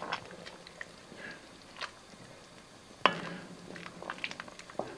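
Wooden spoon stirring thick pork and beans in an enamelled Dutch oven: soft wet squelching with light knocks of the spoon against the pot, and a sharper knock about three seconds in.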